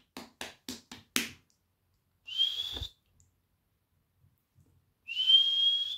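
A quick run of sharp clicks, about five a second, then two short breathy whistles made through pursed lips. Each whistle is a single high note rising slightly, the second one held a little longer.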